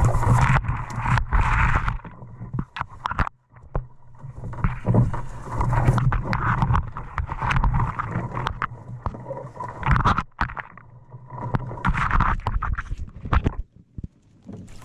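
Branches and brush scraping and swishing against an overturned canoe carried overhead, with irregular knocks and rustles and a low rumble, broken by a few brief lulls.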